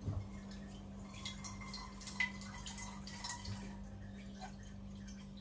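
Faint kitchen handling sounds: small clinks and taps of a cooking pot, with water dripping and splashing, over a steady low hum.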